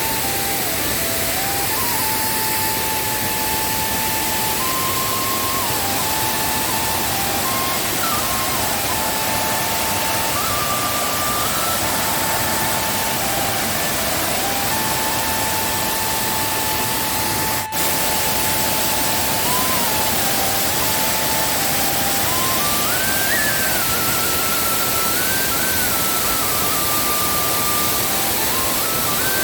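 Steady roar of a waterfall running high in rainy-season flood, with a simple one-line background melody stepping up and down over it. A single sharp click about two-thirds of the way through.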